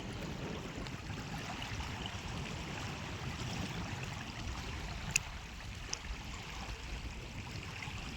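Steady rush of flowing water with wind buffeting the microphone, and one sharp click about five seconds in.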